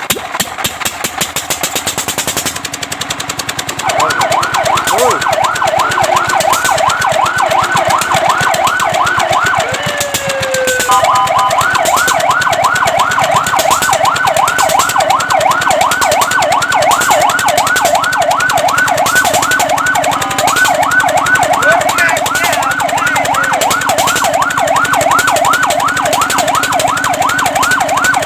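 Fire truck siren on a fast yelp, rising and falling several times a second, starting about four seconds in. Near the middle it breaks for a falling tone and a short steady two-note blast, then the yelp resumes. A rapid, even engine clatter runs underneath throughout.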